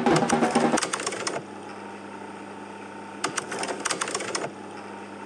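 Drum-heavy music cuts off about a second in, giving way to an old film-projector sound effect: a steady mechanical hum with two clusters of crackling clicks.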